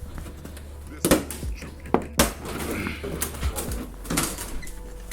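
Several sharp knocks and clatters of a plastic car bumper cover being handled after removal. The loudest come about a second in and just after two seconds in.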